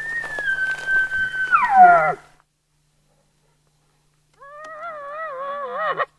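Elk calls: a long, high whistled bugle held for about two seconds, then dropping into low grunts. After about two seconds of dead silence comes a lower, wavering call near the end.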